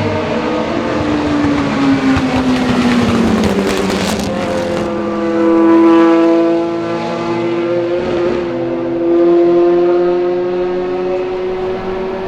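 Ferrari F430 GT2 race car's V8 dropping in pitch as it slows, with a burst of crackles and pops on the overrun around four seconds in. It then pulls hard, the engine note climbing, dips briefly about eight seconds in, and climbs again.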